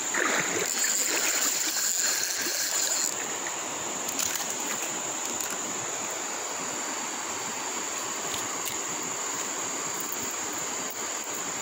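Steady sound of a flowing river, with a continuous high-pitched insect buzz over it.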